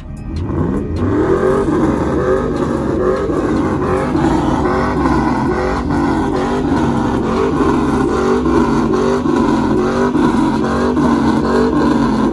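Chevrolet Tahoe's V8 engine revved over and over, about once a second, its pitch climbing at the start.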